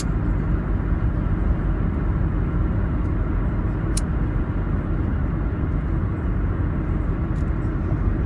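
Steady low road and engine rumble inside a moving car's cabin, with one faint sharp tick about four seconds in.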